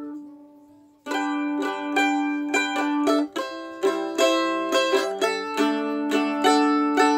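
Harley Benton HBMA-100E mandolin strummed in chords. The previous chord fades out, then about a second in the strumming starts again, a few strums a second, changing chord twice.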